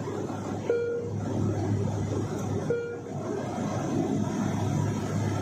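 Steady airliner cabin drone from the engines and airflow, with a constant low hum. Two short, identical beeps sound about two seconds apart, the first under a second in.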